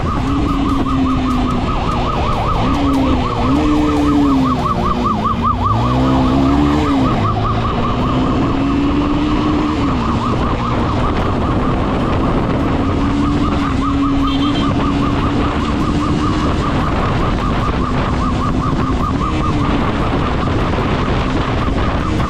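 Police motorcycle siren on a fast yelp, warbling about five times a second without a break. Under it the motorcycle's engine rises and falls as it is revved through the gears at speed, with rushing wind noise.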